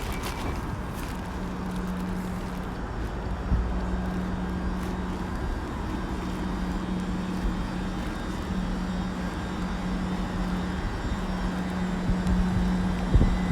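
Two coupled Class 387 electric multiple units pulling out of the station, a steady low hum over the rumble of the train running, with a single knock about three and a half seconds in.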